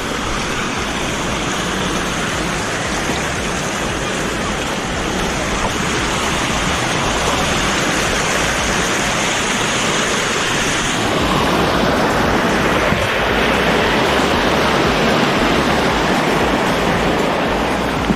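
Waterfall rushing: a steady, loud hiss of falling water. About eleven seconds in the sound shifts a little as the top end drops away.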